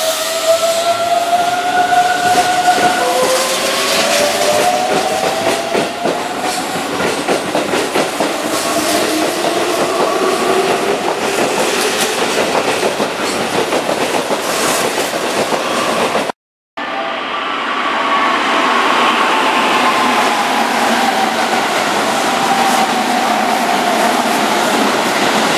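Keihan 9000-series VVVF electric train accelerating away from a platform: its inverter-driven traction motors whine in several tones that rise in pitch step by step, with wheels clacking over rail joints. About two-thirds through, the sound cuts out for a moment, then the train is heard running by again with its motor whine drifting slowly lower.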